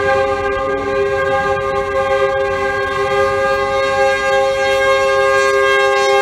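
Union Pacific diesel locomotive's air horn blown in one long continuous blast, a chord of several notes, as the freight train approaches and passes close by, over the low rumble of the train.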